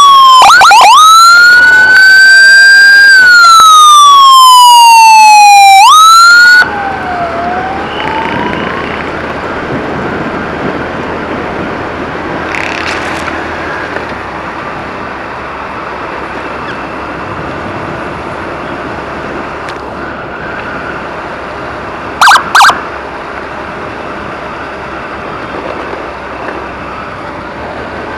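Electronic emergency siren very close and loud, wailing in long falling and rising sweeps with a quick yelp near the start, cut off sharply about six and a half seconds in. After that there is steady motorcycle riding and road noise with a faint siren, and two short loud beeps about three quarters of the way through.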